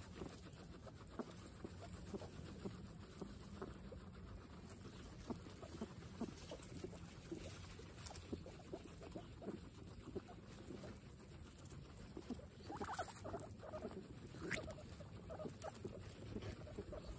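Several guinea pigs munching fresh grass: a steady run of soft, quick chewing crunches mixed with rustling of the grass.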